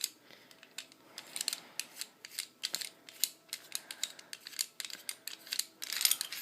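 Irregular small clicks and scraping of a KJW M1911 airsoft pistol's parts being handled as its barrel is unscrewed, with a dense run of clicks near the end.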